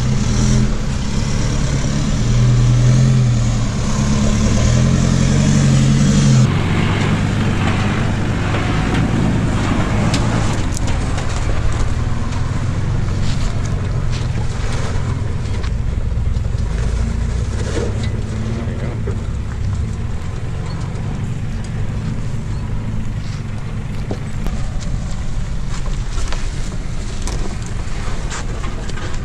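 Four-wheel-drive utes, a Nissan Navara among them, crawling at low revs up a rutted, rocky dirt track, with stones and gravel clicking and crunching under the tyres. The engine note is steady at first and changes abruptly about six seconds in.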